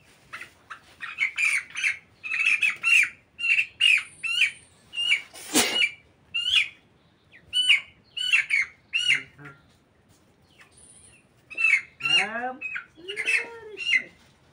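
Chickens calling: a run of short, high, repeated calls, several a second, with brief pauses. There is a single sharp knock about halfway through.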